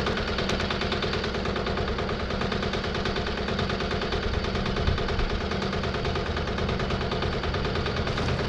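Wood-Mizer LT15 portable band sawmill running steadily, with a fast, even pulsing.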